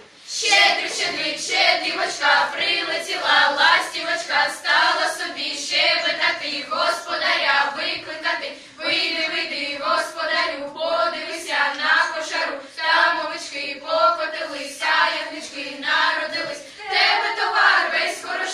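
A group of children singing a Ukrainian New Year carol together, unaccompanied, in phrases with short breaks for breath.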